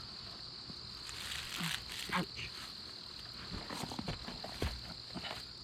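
Steady high-pitched insect trilling, typical of crickets in late summer, with scattered soft clicks and rustles from close by.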